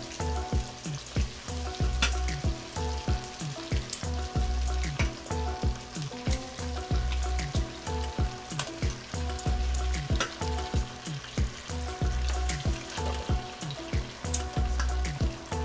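Beef ribs sizzling and frying in hot oil in a wok, with background music with a steady beat.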